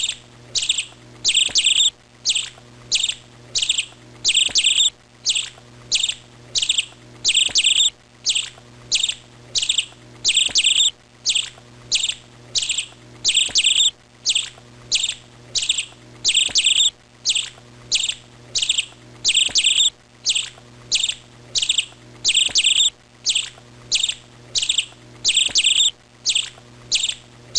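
Bird chirping: short, high chirps repeated at an even pace, roughly one or two a second, over a faint steady low hum.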